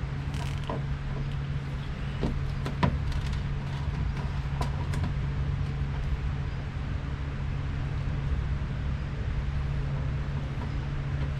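A steady low machine hum runs throughout, with a few short, light clicks in the first few seconds.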